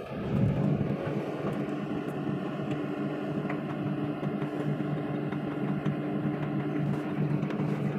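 Diesel engine of heavy earthmoving equipment running steadily at raised revs with an even, unbroken hum, heard from inside the machine's cab.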